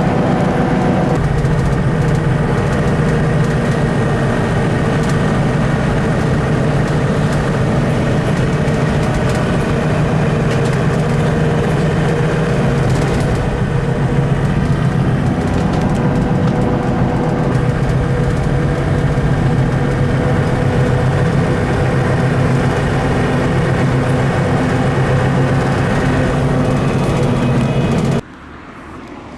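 Car running along the road, heard from inside the cabin: a steady engine and road drone that stops suddenly near the end.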